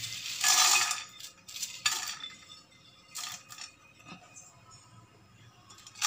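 Dried green cardamom pods, with cloves, rattling and clinking against a glass bowl and a frying pan as they are scooped out by hand and tipped in. There is one longer rattle about half a second in, then a few short ones.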